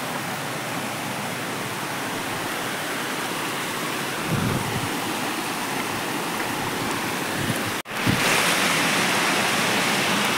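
Steady rush of water running over rocks in a stream. A dull bump comes about four seconds in, and after a brief break near eight seconds the rush is louder and brighter.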